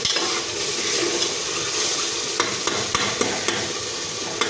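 Onion-tomato masala sizzling in oil in an aluminium pressure cooker while a spoon stirs it, clicking and scraping against the pot several times. This is the bhuna stage: the spiced masala being fried down.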